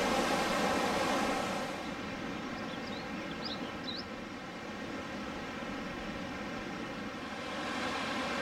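Steady rushing of the Piedra River, a mountain river, with a few short high bird chirps about three seconds in.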